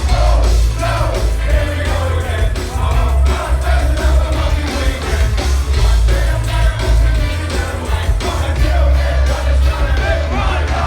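Live band playing loud dance music over a PA, with a heavy bass line, a steady driving beat and a vocalist singing or shouting over it.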